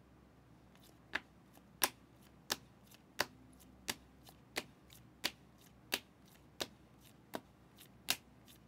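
Hard plastic card holders clicking against one another as a stack of cased trading cards is flipped through one card at a time: a sharp click about every two-thirds of a second, starting a second in.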